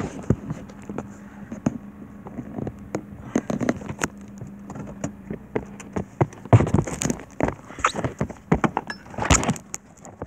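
Handling and wind noise on a handheld phone's microphone: irregular knocks and crackles, densest in the second half, over a low steady hum that stops about six seconds in.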